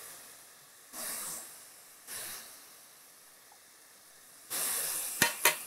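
Soft sizzling and hissing of radish, onion, lentils and dried chillies sautéing in a pan on a low flame. It comes in faint swells, gets louder for the last second, and has a few sharp clicks near the end.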